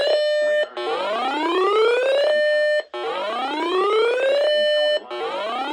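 Electronic whoop alarm tone: a pitch sweeping upward and then holding steady for a moment, repeating about every two seconds with a short break between sweeps.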